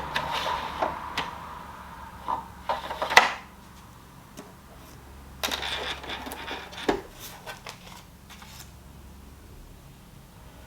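Hard plastic and metal clicks, knocks and rattles as sewing machine parts and accessories are handled, in short clusters, the loudest about three seconds in and another run between about five and a half and seven seconds.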